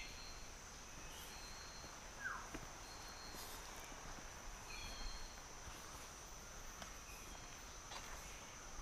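Tropical rainforest ambience: a steady high-pitched insect drone, with short high calls repeating every second or so and one falling call about two seconds in. Faint footsteps on a dirt trail.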